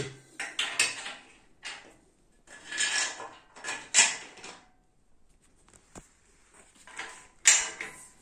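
Metal tools, bolts and an aluminium tube knocking and scraping against a steel weight-machine frame during assembly: irregular short clanks and rattles with pauses between, a sharp click about six seconds in and the loudest clank near the end.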